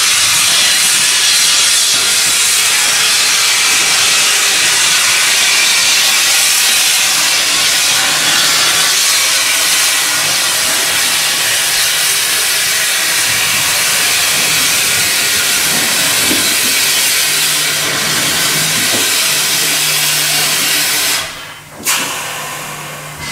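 Steady loud hiss of steam escaping from Caledonian Railway No.419, a 0-4-4 tank engine standing at the platform. The hiss cuts off suddenly about 21 seconds in, followed by a brief sharp knock.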